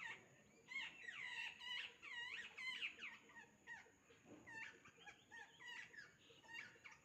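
Birds chirping: many quick, high chirps that sweep down and up in pitch, several a second and overlapping, busiest in the first three seconds.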